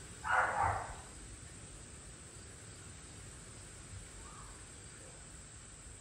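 A single harsh bird call lasting under a second, starting just after the start, with a faint shorter call about four seconds in. Steady high-pitched insect buzzing runs underneath.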